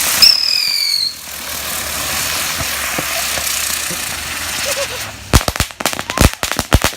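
Ground-spinner firework going off. It gives a short falling whistle over a hiss, then a steady spraying hiss, and from about five seconds in a fast run of sharp cracks, several a second.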